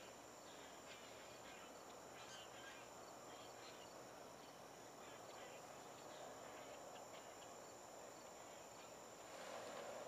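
Faint, irregular chatter of a large flock of birds gathering to roost in a tree for the night, over a steady high whine.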